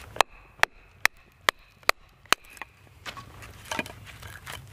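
A baton striking the spine of a bushcraft knife six times, just under half a second apart, driving the blade down through a thick, solid piece of dry wood to split it. The knocks are followed by fainter scraping and rustling as the split wood is worked apart.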